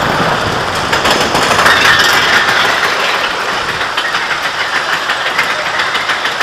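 Mine-train roller coaster running along its track and then climbing a chain lift hill. About a second in, the wheel rumble gives way to a rapid, regular clacking from the lift chain and anti-rollback ratchet as the train is pulled uphill.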